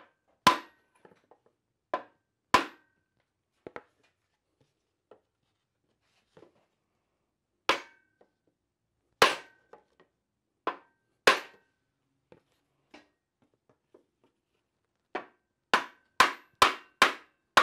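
Sharp knocks struck on the Porsche 356 transaxle's aluminum case to work the gear cluster loose. Single blows come a second or more apart, then a quick run of about six near the end.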